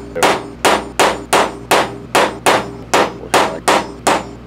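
Hammer striking a steel letter punch to stamp custom lettering into a golf wedge head held in a vise: sharp metallic strikes, about three a second, each with a short ring.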